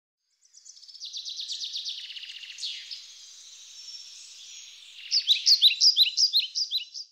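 Songbirds singing: a fast high trill over the first couple of seconds, then a louder quick series of sharp, falling chirps in the last two seconds.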